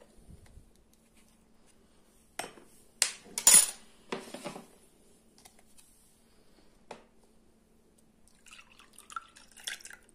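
Glass and kitchenware clinking and knocking a few times, loudest about three and a half seconds in, with light liquid sounds from the freshly squeezed orange, ginger, garlic and honey juice. A patter of small light clicks follows near the end.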